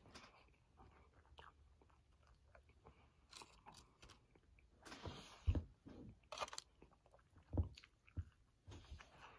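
A person chewing and biting food close to the microphone, with wet mouth sounds and light crunching. A few louder short knocks come in the second half.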